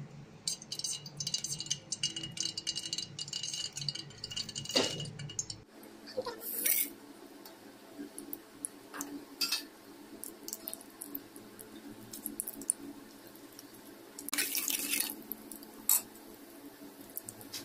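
Hot ghee sizzling and crackling in a pressure cooker, then whole spices (black peppercorns, cardamom pods, cinnamon, cloves) frying in it with scattered sharp crackles and a short louder burst of sizzling near the end.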